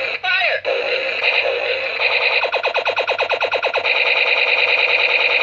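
Electronic sound effects from a battery-powered toy's small speaker: a buzzy, synthetic tone with sliding pitch sweeps, breaking off briefly near the start, then a stretch of rapid pulsing at about a dozen beats a second before a steady tone returns.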